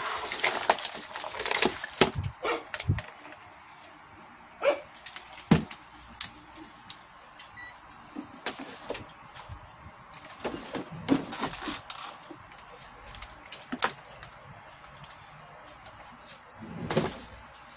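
Small tools, wires and parts clicking and clattering as they are handled in a workbench drawer, with scattered knocks, the busiest in the first three seconds and fewer, fainter ones after.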